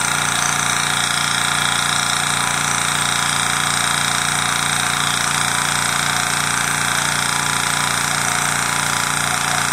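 Hill EC-3000 portable high-pressure air compressor running steadily under load, with a fast, even pulse of about four to five beats a second, as it fills an air rifle's carbon fiber tank toward 250 bar.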